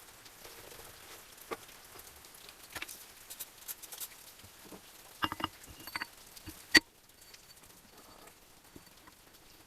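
Small metal parts and tools being handled during engine assembly: scattered light clicks and taps, with a few short ringing clinks and one sharp clink about two-thirds of the way in.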